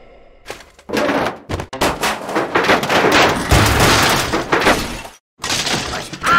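Cartoon sound effects of concrete breaking apart: a run of crashes and crumbling, with chunks of rubble clattering down, lasting about four seconds. A shorter burst follows near the end.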